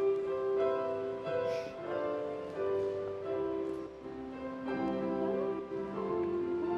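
Instrumental music in slow, long held notes, with the notes changing every second or so.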